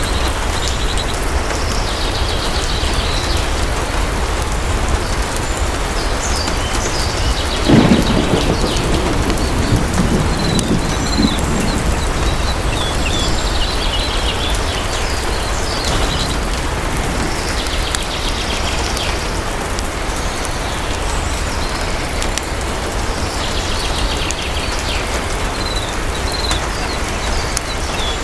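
Steady heavy rain falling, with a clap of thunder about eight seconds in that rumbles on for several seconds. Short high chirps come and go through the rain.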